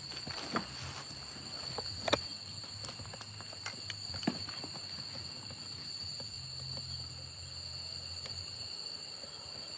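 Night insects, crickets, chirring in a steady high drone at two pitches. A few crunches of dry fallen leaves underfoot cut through it, the sharpest about two seconds and four seconds in.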